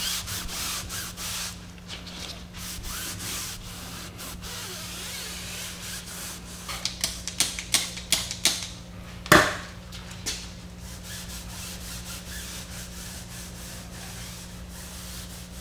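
Tire dressing being wiped onto a tire sidewall: repeated rubbing strokes, then a run of sharp clicks and a loud knock about nine seconds in, over a steady low hum.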